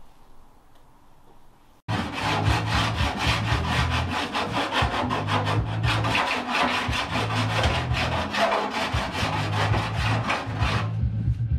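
Hand file scraping in rapid, even strokes along the freshly cut edge of a Nissan 350Z's front fender arch, taking off the sharp burr; it starts abruptly about two seconds in.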